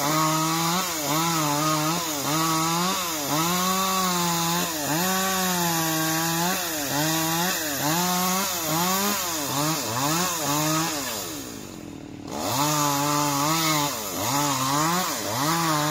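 Chainsaw running at high revs and cutting wood. Its pitch dips and recovers again and again as the chain loads up in the cut. A little past two-thirds of the way through it falls away and drops off, then comes back up to full revs. This is the back cut after the notch has been opened, on a section about to break off.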